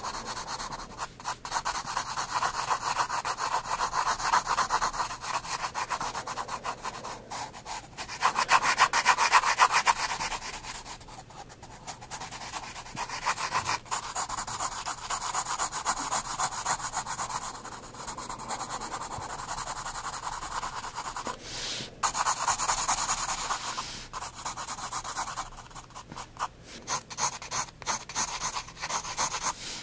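9B graphite pencil scratching on sketchbook paper in rapid back-and-forth shading strokes, broken by a few brief pauses.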